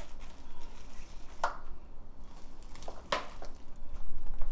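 Wet squishing of thick chili seasoning paste as rubber-gloved hands work it into a bowl of green onions for green onion kimchi. A few short, sharper squishes stand out, about a second or two apart.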